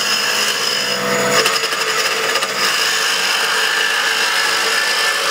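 Wood lathe spinning a walnut blank at about 2800 RPM while a lathe duplicator's cutting tip takes a light first pass along it, a steady scraping hiss of wood being cut. There is a rougher, chattering stretch about a second and a half in.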